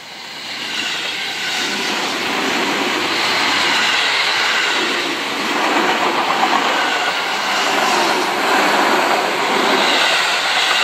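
Red Seibu Railway 9000-series electric commuter train passing close by, its wheels clattering over the rails. The sound builds over the first second or two and stays loud as the cars go past.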